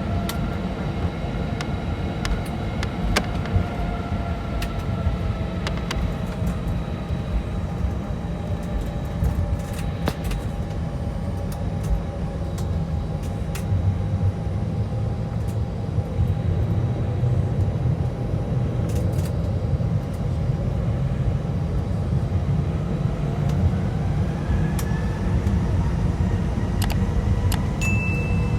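Cabin noise inside an Airbus A320: a steady low rumble with the jet engines' hum and whine. It grows a little louder from about halfway, and near the end the whine starts to rise as the engines spool up, with a short high beep just before the end.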